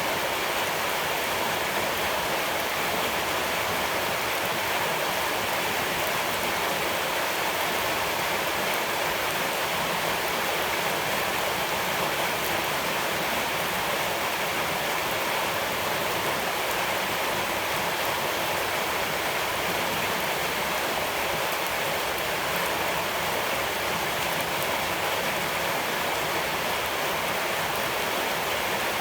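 Steady rushing water, an unbroken even wash of sound with no distinct splashes or changes.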